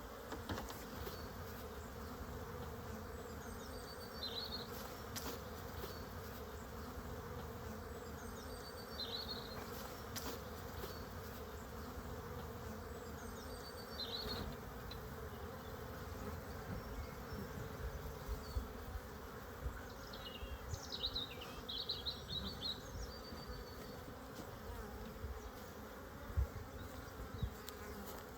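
Honeybees buzzing steadily in a crowded, open hive.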